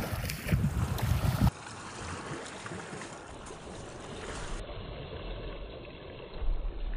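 Wind rumbling and buffeting on the microphone outdoors. About a second and a half in it cuts off abruptly to a much quieter steady hiss, with a brief low rumble near the end.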